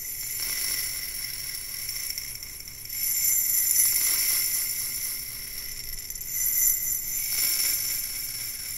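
Handheld cylindrical tube-shaped ASMR trigger tilted slowly back and forth close to the microphone: a high, steady jingling ring with swells of rushing, shaking noise as it is tipped, strongest about three seconds in and again near the end.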